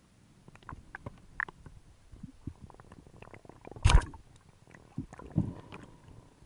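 Rubber-band speargun fired underwater: one sharp, loud clack about four seconds in as the shaft is released, followed by a duller thump a second and a half later. Faint clicking and crackling of the sea throughout.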